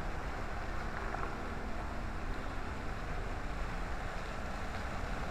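Park fountain: many water jets falling into a wide, shallow basin, a steady rushing splash of water.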